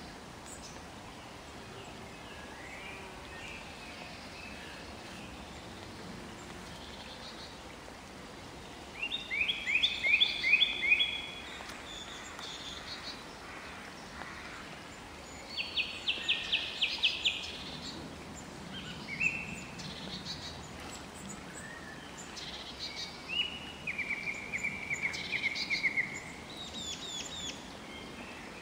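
Common blackbird calls: three bursts of rapid repeated notes, each lasting about two seconds, with fainter scattered notes between them, over a steady background hiss.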